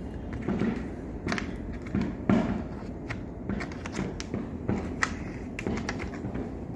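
Distant fireworks going off: a string of irregular sharp bangs and pops over a steady low background noise.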